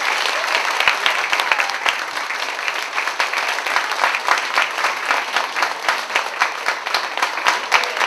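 Theatre audience applauding, many hands clapping continuously.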